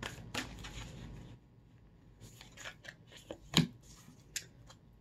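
A deck of oracle cards being shuffled by hand, a rustle for the first second or so. Then come a few light snaps and taps as single cards are handled and drawn, the sharpest about three and a half seconds in.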